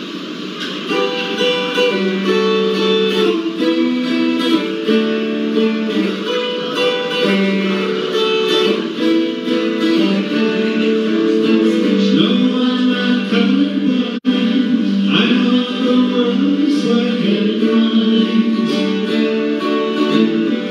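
Live acoustic guitar, picked notes and chords in a steady song, starting about a second in, with a very brief dropout about two-thirds of the way through.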